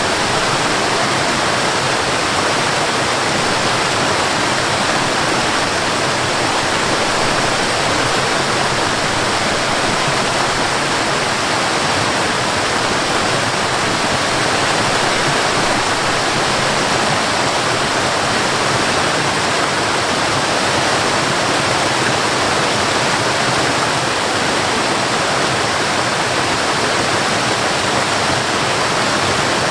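Cascading water: a steady, even rush of falling water with no breaks or changes.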